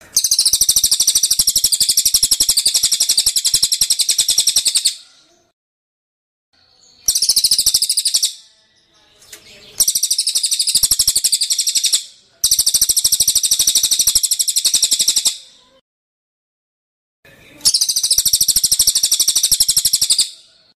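Cage-bird mastering song of a cililin (crested jay) and a kapas tembak. Long, very rapid high-pitched rattling trills come in five bursts, with short silent gaps between them.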